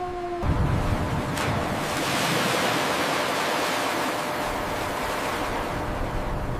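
Heavy rush of water, starting suddenly about half a second in and holding steady.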